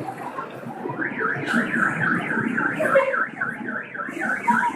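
Car alarm warbling: a rapid run of rising chirps, about five a second, starting about a second in, over low street noise.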